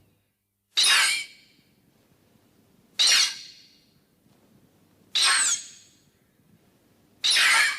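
Mothra's high-pitched squeaking cry, the monster sound effect from the Showa-era (1964–1968) films, repeated four times about two seconds apart. Each call starts suddenly with a slightly falling pitch and fades over about half a second.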